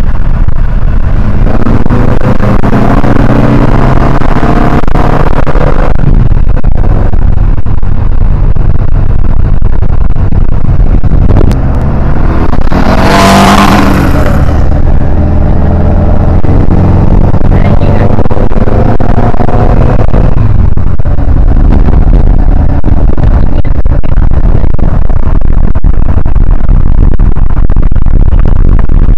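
Turbocharged air-cooled VW Beetle engine pulling hard under acceleration, climbing in pitch through each gear with breaks at the shifts, heard from on board and very loud. About halfway a loud rushing hiss lasts some two seconds.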